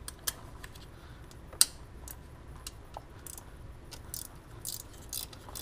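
Ratcheting wrench working the intake manifold bolts: scattered sharp metal clicks and a few short runs of ratchet ticking.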